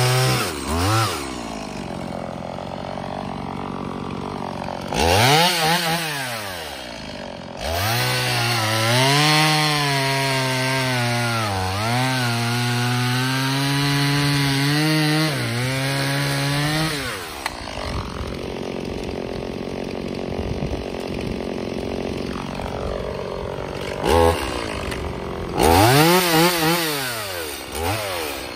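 Stihl MS 180 C-BE two-stroke chainsaw cutting through a hard hickory round, its engine held high and sagging in pitch as the bar is buried in the wood and working hard. The long cut ends at about 17 s and the saw drops to idle, with brief revs up and down near the end.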